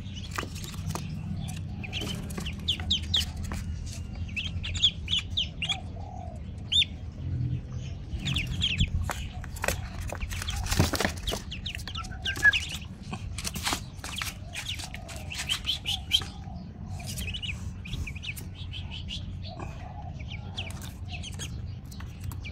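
Newly hatched ducklings peeping in quick clusters of short, high peeps. Knocks and rustles of hands handling them in a cardboard box come in between, thickest around the middle.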